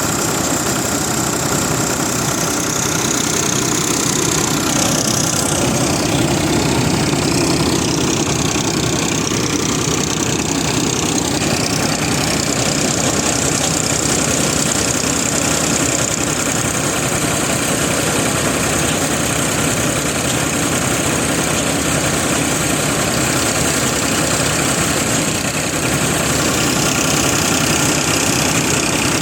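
Farmtrac 60 PowerMaxx tractor's diesel engine running steadily, working a wheat harvester, with machinery noise mixed in.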